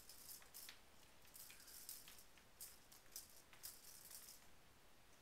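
A cat's faint, hissy breathing noises: irregular puffs of air, some short and some drawn out over most of a second.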